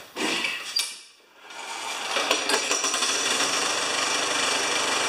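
A Briggs & Stratton single-cylinder push-mower engine being started: it fires at once, falters about a second in, then picks up and runs steadily. It runs with a heavy, rhythmic knock, which the owner thinks comes from a loose blade.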